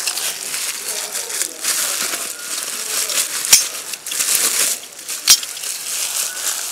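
Crinkling and rustling of packing wrap being crumpled by hand, with two sharp clicks about three and a half and five seconds in.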